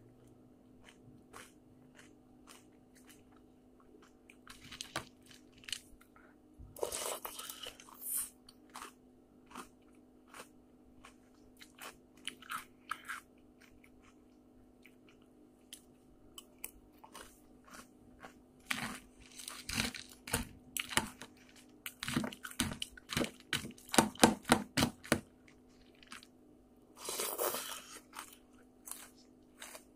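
A person chewing crunchy cereal in milk close to the microphone, with many sharp crunches and clicks that come thickest about two-thirds of the way through. A faint steady low hum runs underneath.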